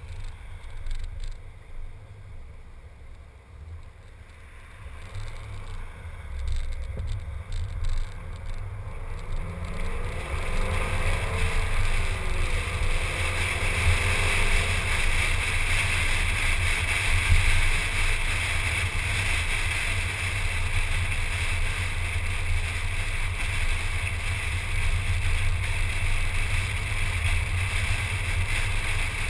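A car pulling away and accelerating, its engine note climbing over several seconds, then steady wind and road noise at cruising speed, picked up by a camera mounted on the hood.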